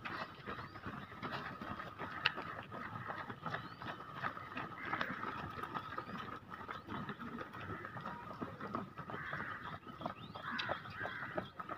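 Footsteps of many runners' shoes on asphalt as a pack runs past, a dense patter of quick steps over a steady outdoor background noise.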